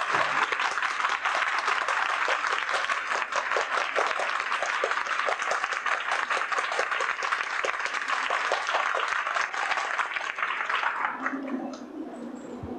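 A crowd applauding, many hands clapping together, the clapping dying away near the end.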